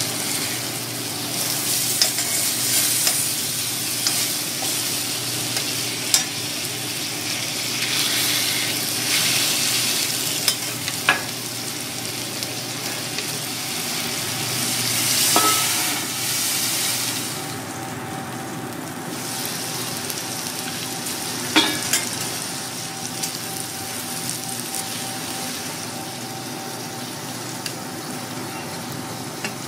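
Kurobuta pork steak pieces sizzling steadily on a flat-top teppanyaki griddle, with a handful of sharp clinks of a metal spatula and fork against the hot iron.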